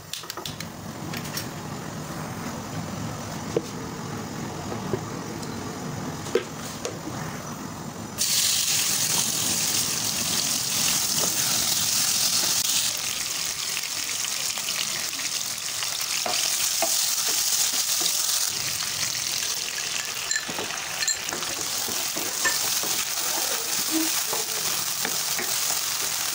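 Chicken and garlic-ginger paste frying in hot vegetable oil in a nonstick wok, sizzling steadily, with a wooden spoon stirring against the pan. The sizzle starts suddenly and loudly about a third of the way in as the food goes into the oil; before that there is only a quieter hiss with a few knocks.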